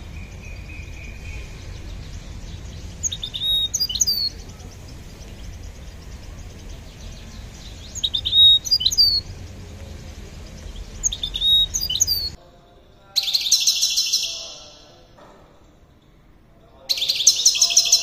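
Caged European goldfinch calling and singing. First come a few short chirps several seconds apart over a steady low background noise; then, about twelve seconds in, the background drops away and two bursts of rapid, high twittering song follow, each lasting a second or two.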